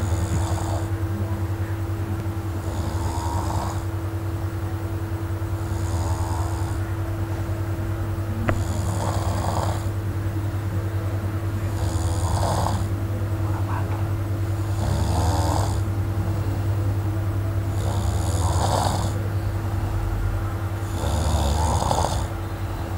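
A sleeping man snoring loudly and rhythmically, one snore about every three seconds, about eight in all, over a steady low hum.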